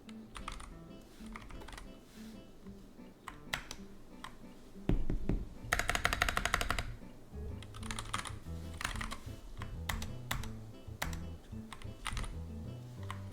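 Keystrokes on a GK61X mechanical keyboard with Zealios V2 67g tactile switches: scattered single key presses, with a quick run of rapid clicks about six seconds in, over background music.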